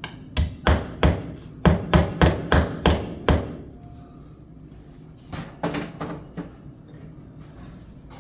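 Hammer driving glued wooden plugs into old screw holes in a wooden door frame: a run of about nine sharp strikes at roughly three a second, then a few lighter taps about five to six seconds in.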